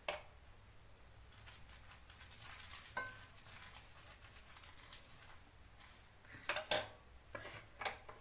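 Faint clinks and taps of a steel spoon against a small steel bowl of oil while oil is spread over a paratha on the tawa. There is one short ringing clink about three seconds in and a few sharper knocks near the end.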